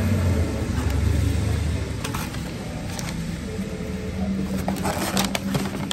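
A motor vehicle's engine rumbling close by, loudest in the first two seconds, then settling into a steadier low hum. A few light clicks come near the end.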